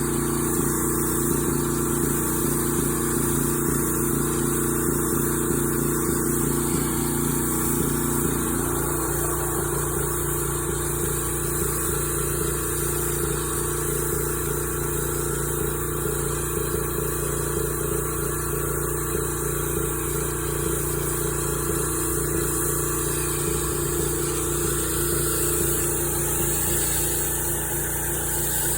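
Engine-driven pressure washer running steadily, with the constant hiss of its spray. Part of the engine hum drops out about eight seconds in.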